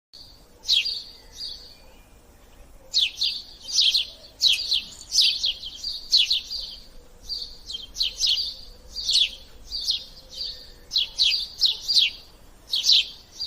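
Sparrow chirping: a string of short, sharp chirps in quick runs, with a brief pause about two seconds in, then chirping almost without a break.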